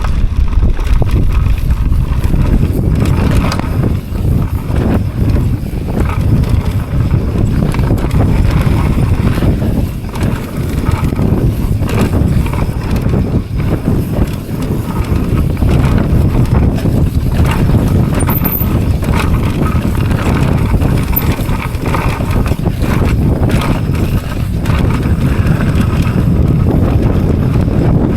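Mountain bike descending a dirt trail at speed: a steady low rumble of wind on the microphone and tyres over dirt, with frequent knocks and rattles as the bike hits bumps and rocks.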